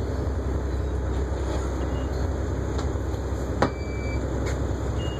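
Steady low rumble inside a city transit bus. About three and a half seconds in there is a single sharp click, followed by a short high beep.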